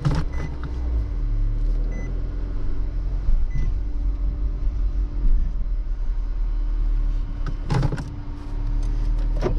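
Tow truck engine running steadily, heard from inside the cab, with a short louder noise about eight seconds in.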